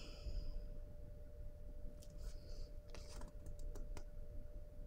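Tarot cards clicking and sliding against each other as the deck is fanned out by hand: a soft scrape about two seconds in, then a quick run of light clicks near the end.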